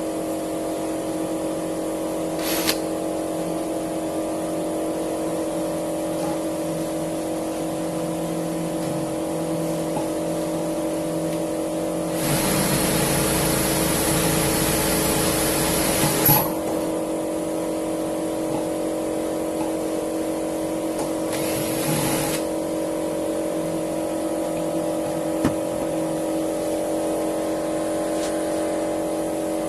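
A steady mechanical hum holding one pitch throughout, with a loud rushing hiss lasting about four seconds near the middle and a shorter hiss about five seconds later, plus a couple of isolated clicks.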